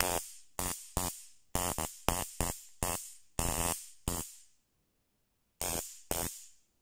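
SLJ 288 flashlight stun gun arcing across its electrodes in short, quite loud buzzing bursts: about ten in quick succession, a pause, then two more near the end.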